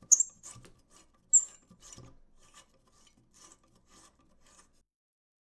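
Metal rifle parts being handled and adjusted: two sharp clicks about a second apart, then a run of light scraping strokes, about three a second, that stop shortly before the end.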